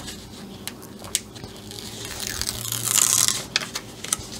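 Diamond painting canvas and its glossy cover and release-paper sheets being handled: rustling and crinkling, loudest about three seconds in, with a few light ticks and taps.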